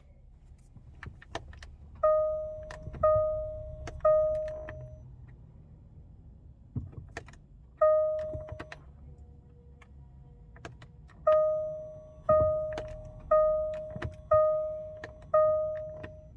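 A 2011 Jaguar XJL Supercharged's warning chime sounds repeatedly while the car fails to start. Each chime is a single struck tone that fades away, about once a second: three in a row, a lone one, then five more. Sharp clicks are scattered between the chimes over a low hum, with no sound of the engine turning over.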